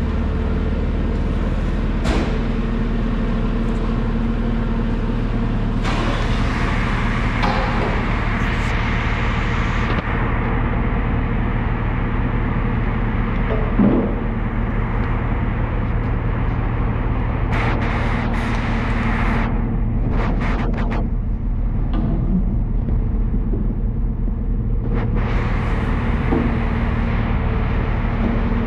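A vehicle engine running steadily at idle, with one sharp knock about halfway through.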